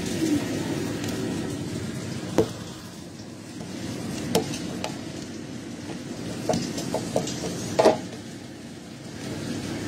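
Leafy greens stir-frying in a wok on a gas stove: steady sizzling, with a utensil knocking against the pan now and then, a few quick knocks late on and the loudest one near the end.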